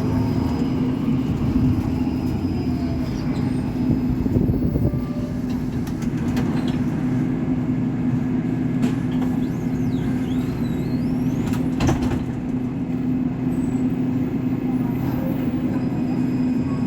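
Caio Millennium BRT trolleybus running, with a steady hum and an electric motor whine that falls in pitch in the first couple of seconds and rises again near the end. There is a sharp knock about twelve seconds in.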